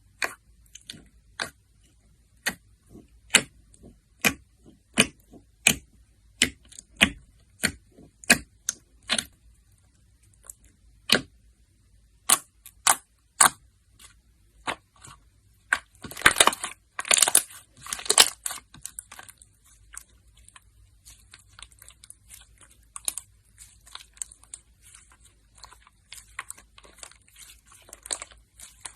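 Slime being pressed and poked, giving a series of sharp pops and clicks about one to two a second, then a burst of dense crackling about two-thirds of the way in, followed by softer crackling.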